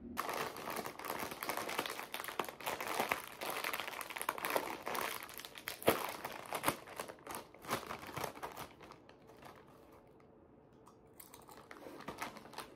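A plastic potato chip bag crinkling loudly as it is handled and pulled apart at the seal, with a sharp rip about halfway through as it tears open. After a short quieter spell it crinkles again near the end.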